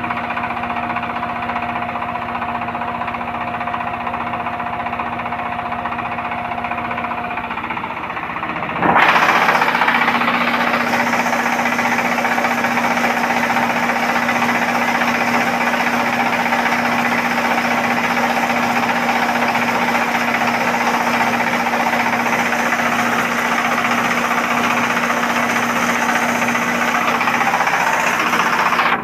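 Diesel-driven hammer mill running under load, grinding dry corn kernels into meal, with the diesel engine's knock under the grinding. About nine seconds in the sound jumps suddenly louder and harsher, then holds steady.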